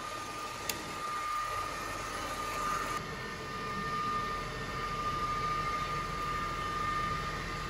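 Steady hum of running machinery with a thin, steady high whine.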